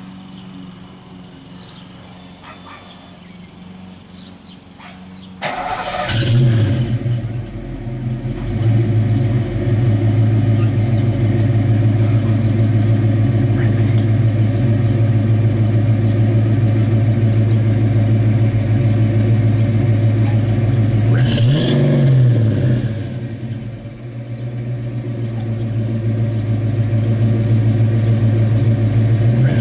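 1989 Mustang 5.0 V8 running through a Flowmaster American Thunder cat-back exhaust with stainless pipes and Super 44 mufflers: it starts about five seconds in and settles into a steady idle. It is revved once, a brief rise and fall, about twenty-one seconds in, then dips and returns to idle.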